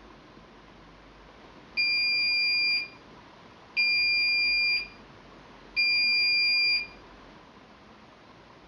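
Washing machine's end-of-cycle beeper signalling that the programme has finished: three identical steady high beeps, each about a second long, two seconds apart.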